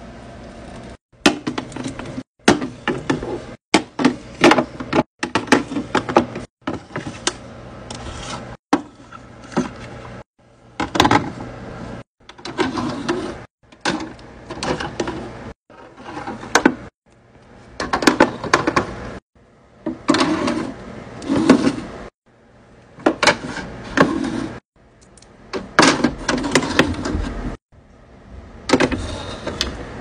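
Skincare jars, tubes and bottles being set down and slid onto the plastic grid shelves of a mini fridge: clicks, knocks and light clatter in short bursts, broken by sudden silent gaps every second or two, over a faint low hum.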